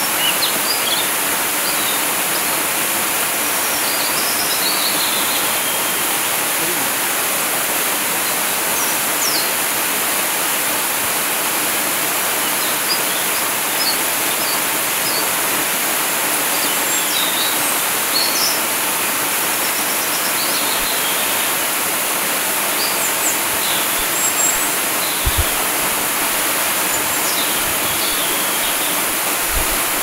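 Steady rush of a waterfall pouring onto rocks, with short bird chirps scattered over it.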